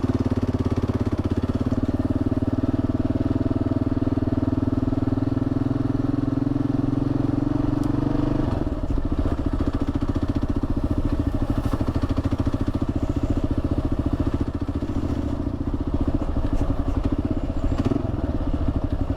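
Kawasaki KLR650's single-cylinder four-stroke engine running as the bike is ridden along, its throttle eased off about eight seconds in, after which it runs lighter and quieter.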